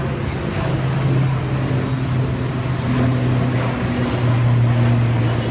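ATR 72 twin-turboprop climbing out after take-off: a steady low propeller drone over a broad rush of engine noise. Its pitch drops slightly about four seconds in.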